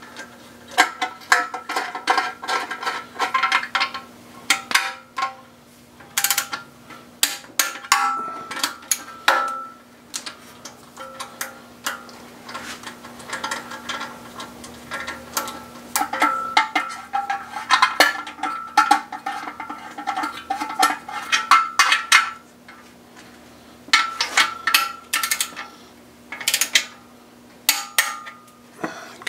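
Hand ratchet clicking in quick runs, with sharp metallic clinks of the socket and tools on metal, as bolts on an engine's oil pump and baffle plate are run down. The clicks come in bunches with short pauses between them, some leaving a brief ring.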